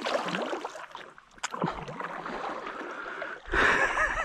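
Kayak paddle strokes: water splashing and trickling off the blade and lapping at the hull. About three and a half seconds in comes a louder rush with a low rumble.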